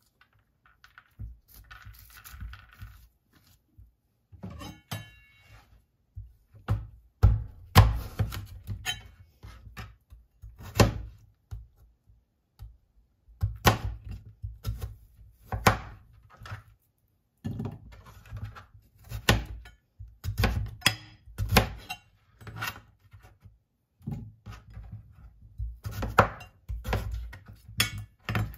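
Chef's knife cutting green papaya on a plastic cutting board: irregular knocks of the blade striking the board, some in quick runs. A spoon scrapes out papaya seeds in the first few seconds.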